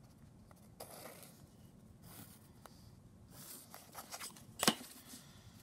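Paper rustling and pencil scraping as a cardstock square is traced and moved on a sketchbook page, in several short swishes, followed by a sharp click about four and a half seconds in.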